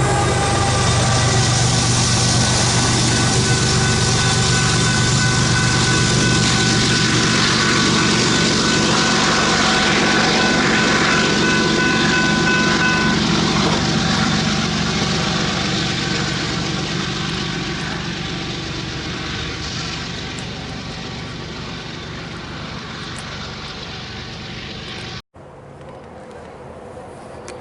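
Freight train rolling past close by, a heavy rumble with steady high-pitched wheel squeal that fades as the train moves away; the sound breaks off abruptly near the end.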